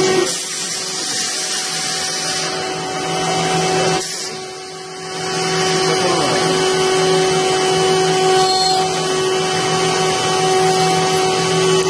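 CNC wood router spindle running with a steady whine while a small carving bit cuts into a wooden furniture leg turned on the machine's rotary axis, with a hiss from the cut. The sound dips briefly about four seconds in, then comes back.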